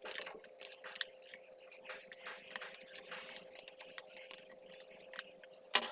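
Knife cutting a peeled red onion into rough chunks: an irregular run of small crisp crunching cuts, with a louder knock near the end and a faint steady hum behind.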